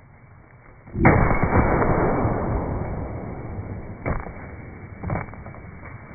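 Pumpkins loaded with 4-inch firework mortar charges exploding: a loud blast about a second in, with a noisy rush that fades over a few seconds, then two sharper bangs about a second apart.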